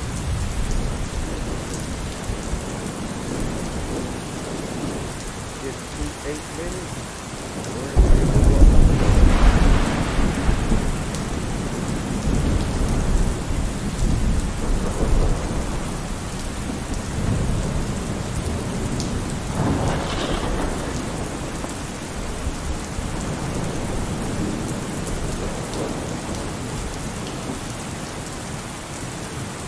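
Steady rain with thunder: a loud clap of thunder breaks in suddenly about eight seconds in and rumbles off over several seconds, and a weaker rumble comes around twenty seconds in.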